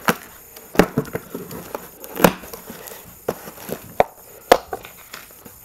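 A small cardboard box being opened by hand, its flaps pulled back and the bagged metal mounting-kit hardware inside handled, making a series of sharp knocks and taps with light rustling. The loudest knocks come about two seconds in and about four and a half seconds in.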